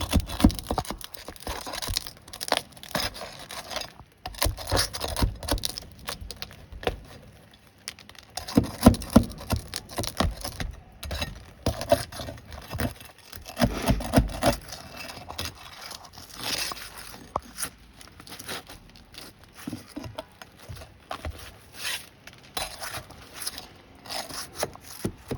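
Heavy-duty nail bar prying roofing nails out of stuck asphalt shingles: irregular scrapes and knocks of metal on shingle and nail, with the crackle of shingle tearing as it is forced up.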